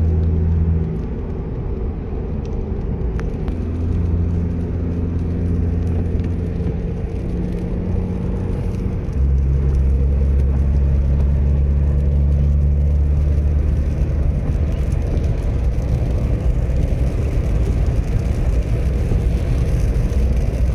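Car engine running steadily while driving, with tyre and road noise. The engine's pitch shifts between a few steady levels as its speed changes, and about nine seconds in the hum grows louder and stronger.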